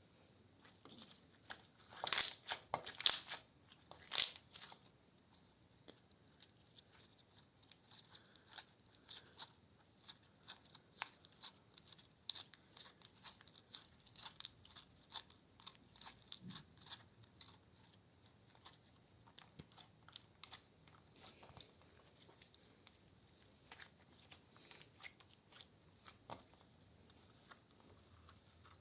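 Slime being handled and kneaded, giving many small sticky clicks and crackles, with a louder cluster of them a couple of seconds in and again about four seconds in.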